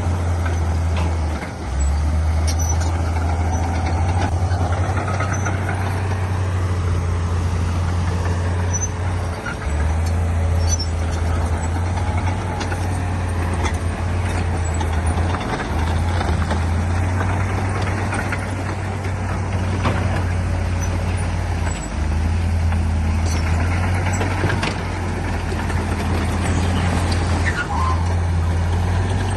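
Heavy diesel earthmoving machinery running steadily under load. The deep engine note drops briefly about every six seconds.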